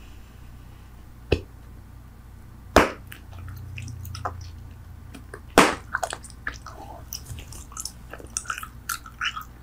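Bubble gum being chewed, with wet mouth clicks and smacks. Three sharp, loud snaps fall in the first six seconds, then the chewing becomes quicker and denser from about six seconds in.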